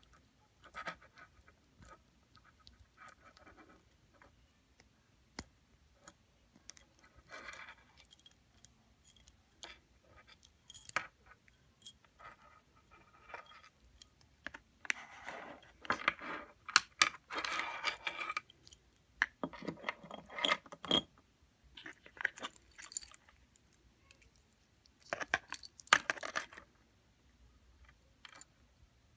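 Gold-tone bebe watch handled in the hands: the metal link bracelet clinks and jingles while long fingernails tap and scratch on the case. There are scattered light clicks, then several louder bursts of rattling, the longest about halfway through.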